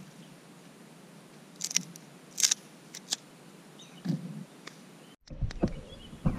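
Wooden sticks clicking and knocking against each other as they are handled and laid across a pit in sand, a handful of sharp separate clacks. Near the end a low rumble comes in with a few more knocks.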